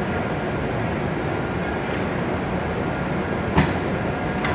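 Steady noise of an E7 series Shinkansen standing at the platform, its onboard equipment running. A sharp click about three and a half seconds in and a lighter one near the end.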